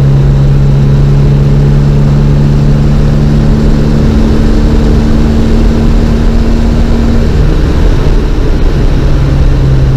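Classic Mini's four-cylinder engine pulling the car along at road speed, heard from inside the small cabin together with road noise. The steady engine note shifts a little about four seconds in and again about seven seconds in.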